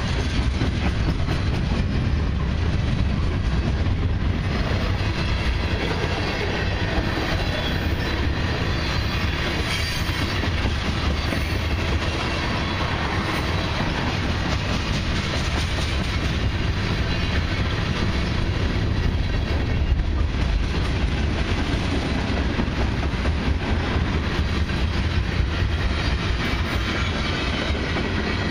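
A CN mixed freight train's boxcars and tank cars rolling steadily past close by: a continuous rumble of steel wheels on rail with clickety-clack over the rail joints.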